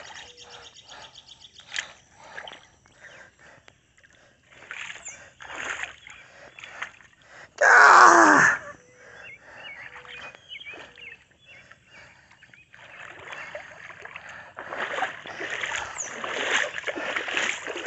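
Footsteps in slide sandals splashing through shallow floodwater, a string of uneven sloshes that get busier and louder near the end. One short, louder burst comes about eight seconds in.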